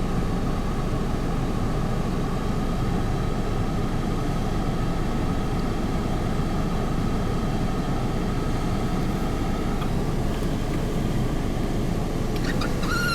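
Strong wind buffeting the microphone, a steady heavy rumble. A brief wavering high call comes in near the end.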